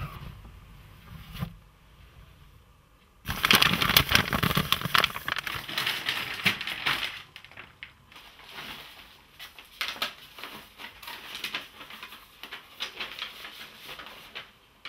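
Paper being handled: a loud burst of crinkling and rustling starts about three seconds in and lasts a few seconds, then lighter, scattered rustles and crackles of paper sheets and an envelope.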